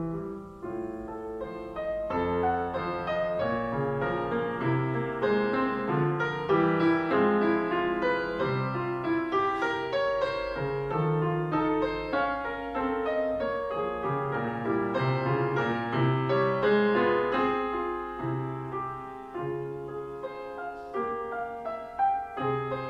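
Solo grand piano playing a continuous passage of many notes in quick succession, with a low bass line under a busier upper part.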